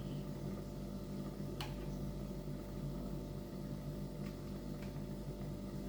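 Steady low electrical hum in a small room, with one sharp click about a second and a half in and two faint ticks later on.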